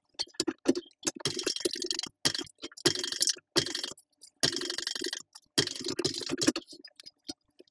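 TechSew 2750 Pro cylinder-arm walking-foot industrial sewing machine stitching in four short runs of about a second each, basting a zipper to a leather and fabric panel, with loose clicks of handling between runs.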